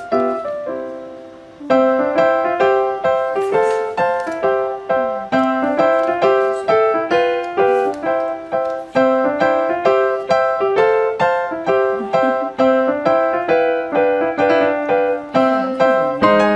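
Background piano music: a light melody of evenly spaced notes that fades briefly near the start and picks up again just under two seconds in.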